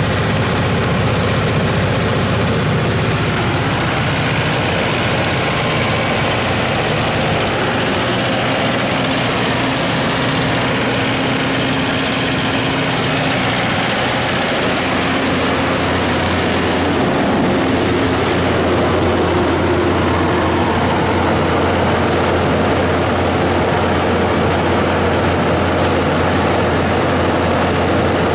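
Perkins 1004-4TG four-cylinder turbocharged diesel engine of a 75 kW generator set, running steadily at governed speed with its cooling fan. The low hum grows stronger a little past halfway.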